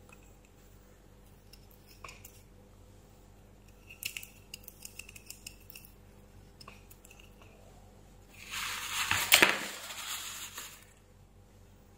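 Light clicks and clinks of small metal planetary gears being handled in a cordless drill's plastic gearbox housing. About eight and a half seconds in comes a louder rubbing, rustling noise lasting about two seconds.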